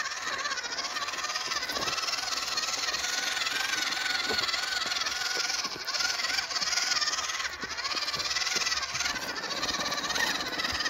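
WPL C24-1 KM RC crawler's electric motor and gearbox whining as it crawls in first gear, the pitch rising and falling with the throttle, with scattered clicks and rattles from the tyres and chassis on loose stones.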